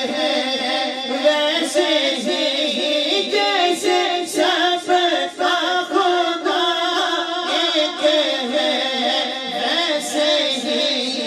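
A man singing an Urdu naat into a microphone, in long drawn-out phrases with the pitch winding up and down.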